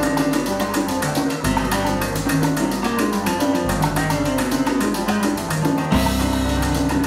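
Live salsa band playing, the digital piano leading over upright bass, congas and a steady percussion beat. The band swells fuller about six seconds in.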